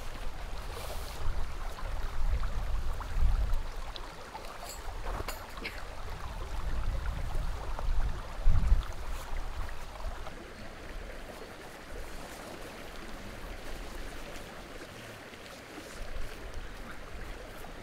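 A stream running, with a low rumble that swells and eases through the first half. A few light clicks come about five seconds in.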